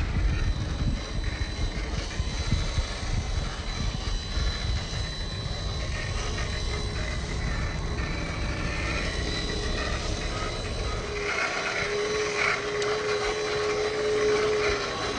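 Traxxas TRX4 Sport RC crawler's electric motor and gears whining as the truck crawls over rock. A low rumble dominates the first part, then drops away; in the last few seconds a steadier, clearer whine comes through.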